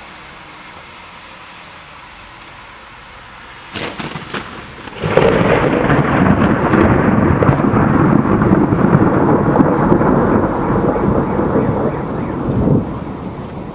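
Thunder from a powerful lightning discharge in a winter sleet storm: a sharp crack about four seconds in, then a loud rolling rumble lasting about eight seconds that dies down near the end.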